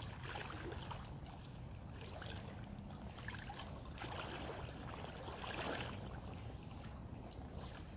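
Water sloshing and splashing in irregular swells as a person wades knee-deep through a river current in chest waders, over a steady low rumble.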